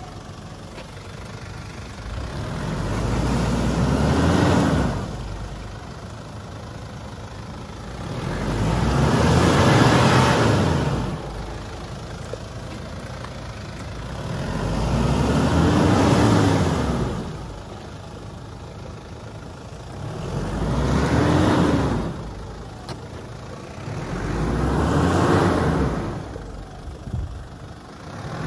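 Toyota Land Cruiser Prado 120's 3.0-litre 1KZ-TE turbo-diesel engine revved in five long swells, each rising and then falling back to a lower running note, with tyres churning in wet mud. The vehicle is being rocked back and forth to free it from a mud hole.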